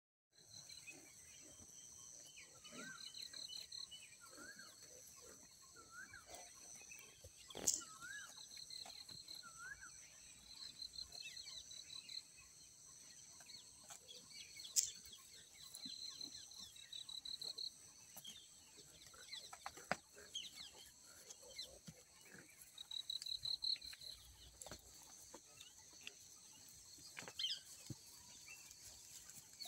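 Faint bird calls: many short chirps and trills, with rising-and-falling call notes repeated during the first ten seconds. A couple of sharp clicks stand out, about eight and fifteen seconds in.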